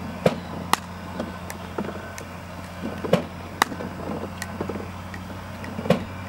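Pickleball paddles striking a plastic pickleball in a fast exchange: sharp pops, the loudest falling in pairs about half a second apart, three times, over a steady low hum.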